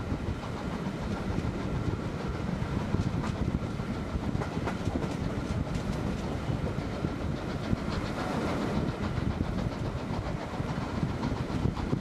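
Passenger train running along the line, heard from on board: a steady rumble of wheels on track with irregular rail clicks and a faint steady high whine. A brief rush of hiss comes about eight seconds in.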